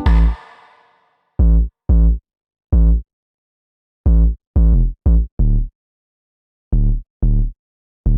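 Electronic background music: short, deep bass hits in an uneven rhythm with silent gaps between them.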